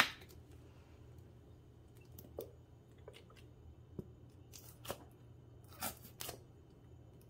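A plastic squeeze bottle of minced garlic being handled and squeezed: one sharp click at the start, then a few faint crackles and squelches as the garlic is pressed out, over a low steady hum.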